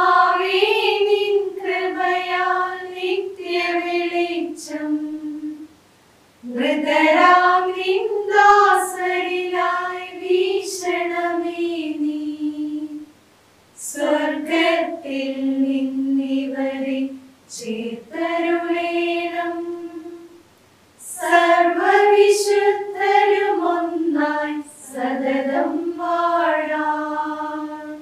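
Small mixed church choir, mostly women's voices, singing a Malayalam hymn for the departed unaccompanied. They sing four long phrases, each about six seconds, with a brief pause between them.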